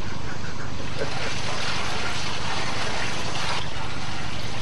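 Homemade motor-driven kinetic sculpture of a cyclist on a bicycle running: a steady whir and rush from its motor and turning wheels over a low rumble, even in level throughout.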